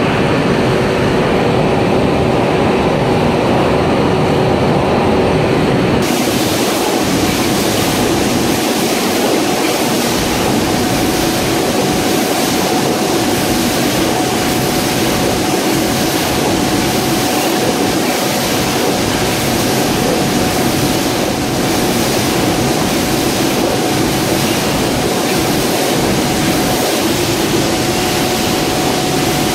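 Crabtree tin plate printing press running: a loud, steady mechanical noise with a faint steady tone through it. The sound turns brighter and fuller in the high range about six seconds in.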